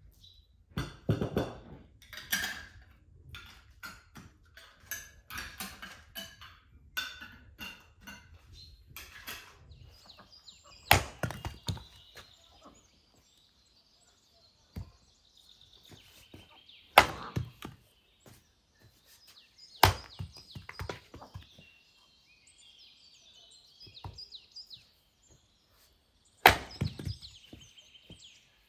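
Chopping: a quick run of lighter knocks for about ten seconds, then four heavy single blows a few seconds apart.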